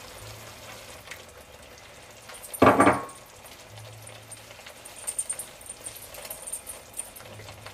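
Curry gravy simmering in a pot, with faint crackles and small pops. One short, louder sound comes about three seconds in.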